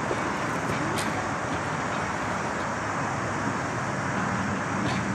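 Steady vehicle running noise: an even rumbling hiss, with a low hum coming in about three and a half seconds in.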